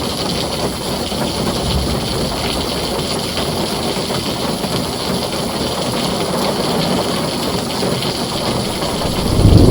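Heavy rain drumming on a tin roof, a steady dense hiss. Near the end a deep rumble of thunder swells in and becomes the loudest sound.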